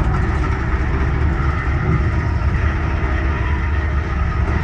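Steady running noise of an Amtrak Amfleet passenger coach at speed, heard from inside its rear vestibule: a constant low rumble of wheels on rail with a rushing hiss above it.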